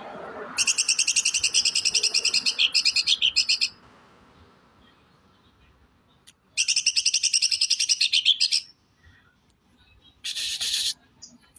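Green leafbird (cucak ijo) singing its harsh, rapid-fire 'tembakan' phrases: two runs of fast, rasping repeated notes, about three and two seconds long, and a short scratchy burst near the end.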